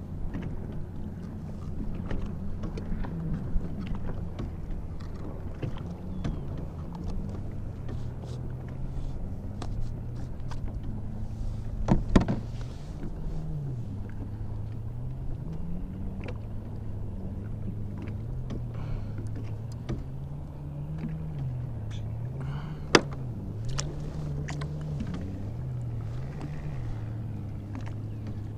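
A motorboat engine running steadily, its pitch slowly rising and falling over and over. Two sharp knocks stand out, one near the middle and one later.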